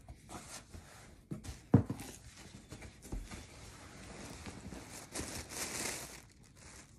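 Paper packaging rustling and crinkling as a box is unpacked by hand, with scattered light clicks and one sharp knock about two seconds in.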